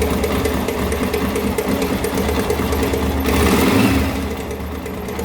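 Honda NX Falcon 400 cc single-cylinder engine running with a fast, even mechanical clatter from the cylinder head, which swells briefly about three and a half seconds in. The noise comes from a damaged camshaft in the head.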